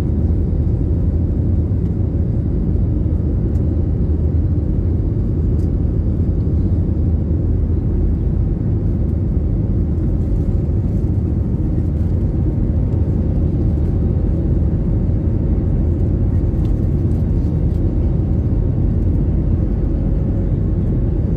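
Jet airliner cabin noise heard from a window seat: a steady low rumble of the engines and rushing air, unchanging throughout.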